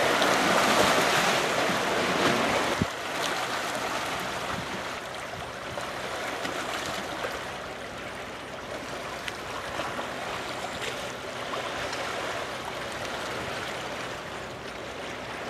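River current washing and splashing against shoreline rocks: a steady rushing hiss of moving water, louder for the first few seconds, then settling to an even level.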